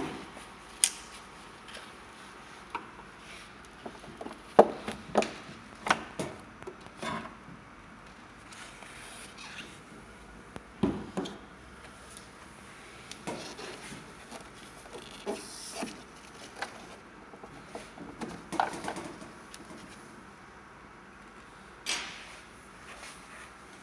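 Scattered light clicks, taps and knocks of handling against plastic, irregular and a few seconds apart, with the blower motor not running.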